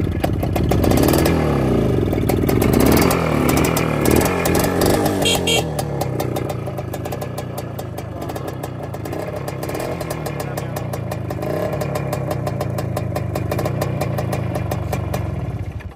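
Motorcycle engine being revved, its pitch swinging up and down several times, then settling into a steadier run.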